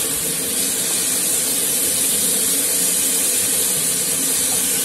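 Chicken, cabbage and carrot stir-frying in a wok over high heat: a steady sizzling hiss as a spatula turns them.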